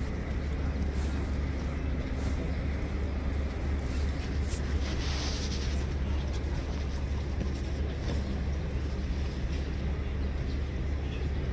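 Outdoor railway-station ambience: a steady low rumble under a noisy background, with a brief hiss about five seconds in.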